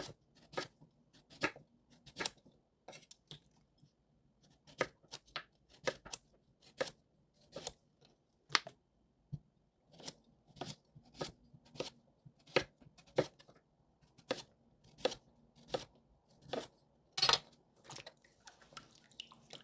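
Chef's knife slicing a raw sweet potato into thick rounds on a wooden cutting board: a steady run of sharp knocks as the blade goes through and hits the board, roughly two a second, with a couple of short pauses.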